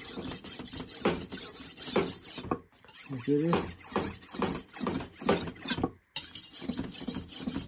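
Metal spoon or spatula scraping and stirring noodles in a pan in quick, irregular strokes, a few each second. A brief voice-like sound comes about three seconds in.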